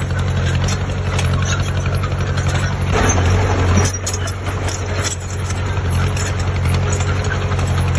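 Heavy construction machine's diesel engine running steadily at a low, even drone. A brief rush of noise comes about three seconds in.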